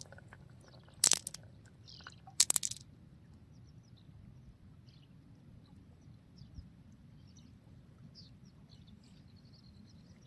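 Marbles clattering on a marble run track in two short bursts of clicks, about a second in and again about two and a half seconds in. After that only faint, scattered high ticks or chirps over a low background hum.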